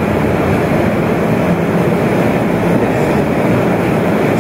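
Steady, loud rumbling noise with no clear pattern, as from a machine or ventilation, running evenly throughout.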